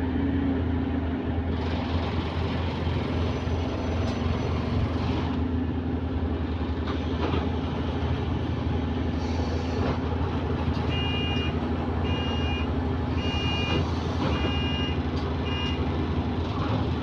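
A bus is running, with a steady low engine hum and road noise. About two-thirds of the way through, five beeps sound in two high tones, each about half a second long and about one a second.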